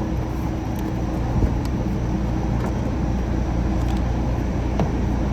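1959 Welbilt Wall-Slim 2-horsepower heat pump running steadily, with its compressor humming low and its fan blowing air in an even rush.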